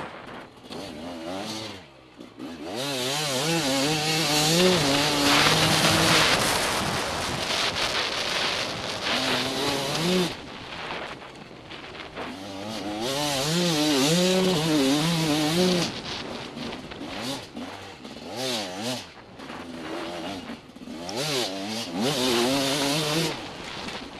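TM Racing enduro motorcycle engine heard from an onboard camera, revving up and down over and over as the rider accelerates, changes gear and backs off. It runs in loud pulls with brief quieter dips when the throttle closes.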